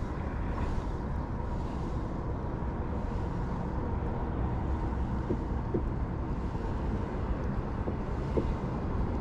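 Wind rumbling steadily on an action camera's microphone over open water, with a faint steady high tone underneath.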